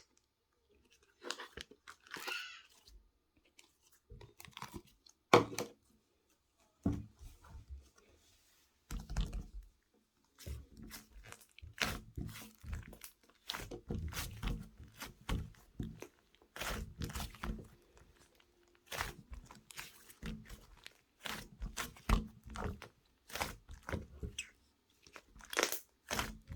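Irregular crunching and crackling in a small room: scattered sharp crunches at first, coming thick and fast from about a third of the way in.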